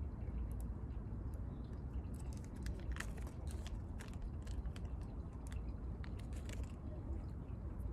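Small light clicks and taps of hands working small parts, clustered about three seconds in and again near six seconds, over a steady low outdoor rumble.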